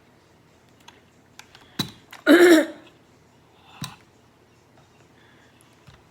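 A few sharp clicks and taps from handling a small plastic handheld sewing machine, with a short voiced sound, like a brief grunt or hum, in the middle.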